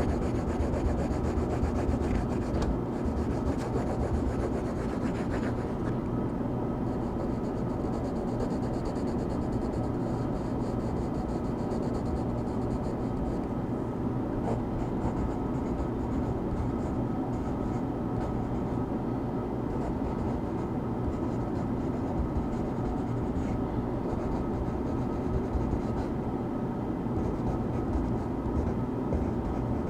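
Coloring strokes rubbing on paper, scratchy and intermittent, fading out after about 13 seconds, over a steady background of white noise.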